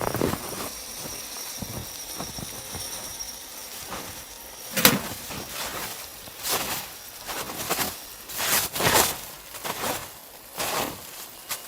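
Slow footsteps crunching in snow, about six heavy steps one to two seconds apart starting about halfway through.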